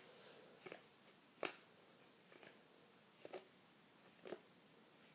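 Trading cards being handled and laid down one after another: faint short taps about once a second.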